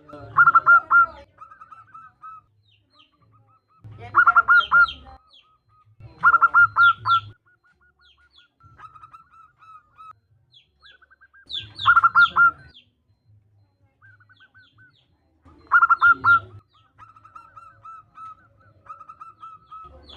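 Zebra dove (perkutut) cooing: five loud bursts of rapid, rolling coo notes about every four seconds, with softer strings of short notes between them. The call is offered as a female calling a male, used as a lure to get perkutut singing.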